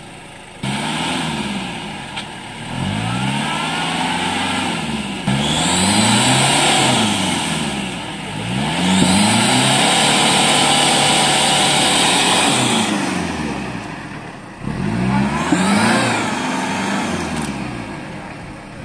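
Toyota Land Cruiser 70's engine revving hard in repeated bursts, pitch rising and falling about five times, as it forces through a deep mud rut. Its Bogger mud tyres spin and churn, spraying mud and water.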